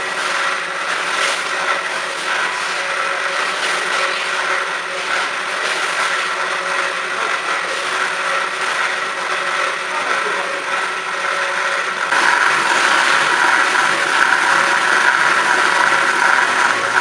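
CORMAK S-280R semi-automatic metal-cutting band saw running, a steady mechanical whine with several held tones. About twelve seconds in it gets louder and harsher.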